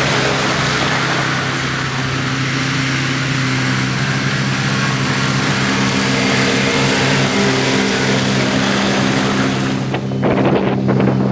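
Heavy diesel construction machinery running steadily: a low engine drone with a loud hiss over it. About ten seconds in the hiss drops away and short rattling clicks come in over the drone.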